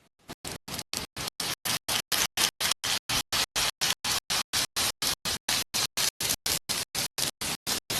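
Slime being worked by hand, giving short crackly bursts of noise in an even rhythm of about five a second, turning loud about half a second in.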